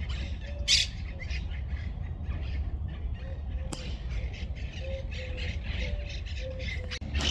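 Birds calling with a quick run of short, squawky calls, one after another, over a steady low hum.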